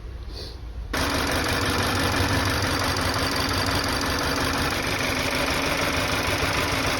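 Hyundai Santa Fe engine running at a steady idle, heard close up. It becomes much louder about a second in and cuts off suddenly at the end.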